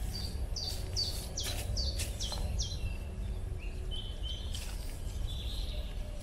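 A songbird singing: a quick run of repeated high notes, each sliding downward, for about three seconds, then a few lower notes and a short buzzy note near the end. A steady low rumble and a few short rustling clicks sound beneath it.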